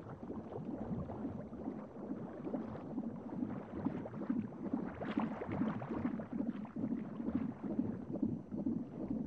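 Low, continuous bubbling and gurgling of liquid, a soundtrack ambience with no clear musical tones.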